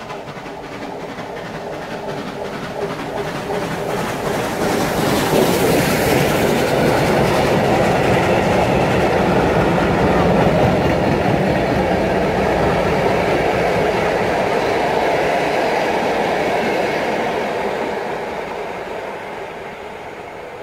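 Ol49 steam locomotive hauling a train of passenger carriages through a station without stopping: the noise builds as it approaches and is loudest, with a hiss, as the locomotive passes about five seconds in. The carriage wheels then keep running over the rails as the coaches go by, and the sound fades away over the last few seconds.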